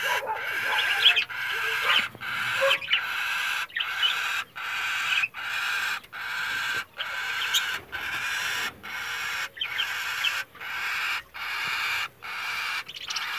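Cockatiel chick giving raspy begging calls, about sixteen half-second rasps in a steady rhythm, a little faster than one per second.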